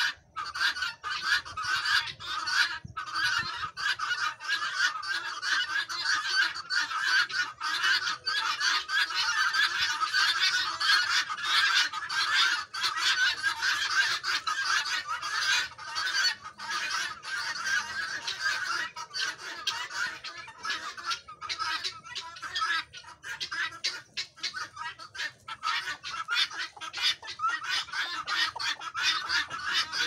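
A flock of helmeted guineafowl calling continuously, a dense chatter of rapid repeated notes from many birds at once.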